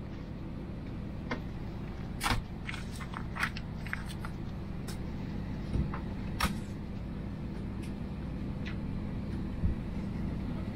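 Steady low hum of an Airbus A321 cabin, with scattered short clicks and rustles of a paper form and a wipe sachet being handled.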